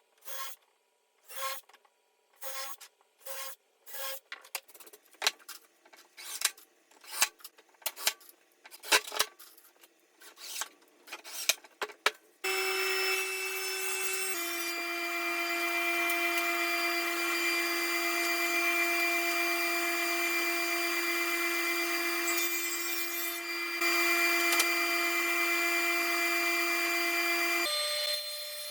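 Woodworking on plywood: a run of short rasping strokes that come faster and faster, then about a second past the halfway mark a power tool starts and runs steadily with a steady whine.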